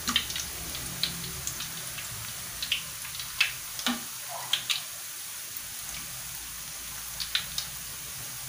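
Peanut rempeyek frying in hot oil in a wok: a steady sizzle with scattered crackles and pops, several a second at times, as hot oil is spooned over the crackers with a slotted ladle.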